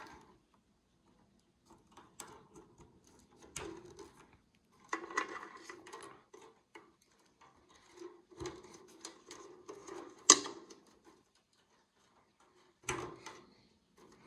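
Power and ribbon data cable connectors being pushed into the hash boards of a Bitmain Antminer L3+ miner, with cables rustling: scattered clicks and handling noise, the sharpest click about ten seconds in.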